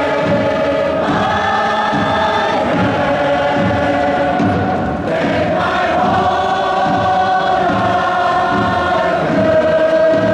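Football supporters in a stadium singing a chant together, many voices in unison holding long notes that change pitch every second or two.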